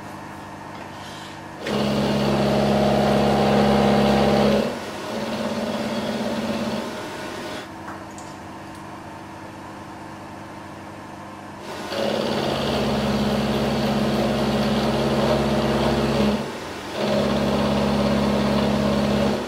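Milling machine running, a steady motor hum that rises to a louder whir in two pairs of stretches of a few seconds each, the first pair starting just under two seconds in and the second about twelve seconds in, with a short dip between the two stretches of each pair; a lower steady hum lies beneath.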